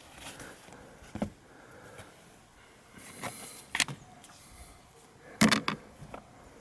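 Three sharp clicks and knocks, about a second in, near four seconds, and loudest at about five and a half seconds, from hands and tools working at the car battery.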